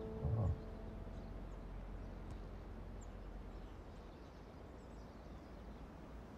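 Soft music dies away in the first second, leaving quiet outdoor ambience: a steady, faint low hum.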